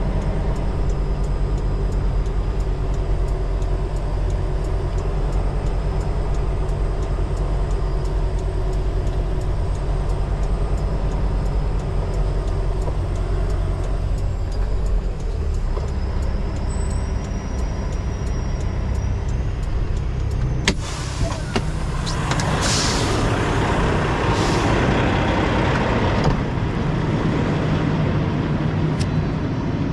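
Semi truck's diesel engine idling steadily. About two-thirds of the way in there is a sharp click, then several seconds of louder hissing surges over the idle.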